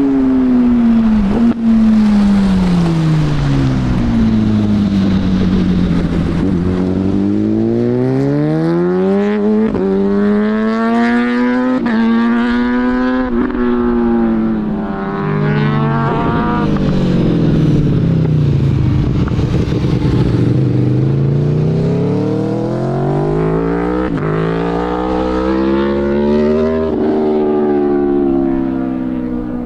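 Sports motorcycle engines revving on a hill road. The revs drop as a bike rolls off, then climb hard through the gears with a short dip at each upshift. This happens twice.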